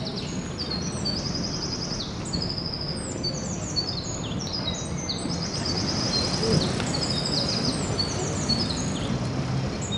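Several songbirds singing at once, overlapping trills and quick runs of high repeated notes, over steady outdoor background noise.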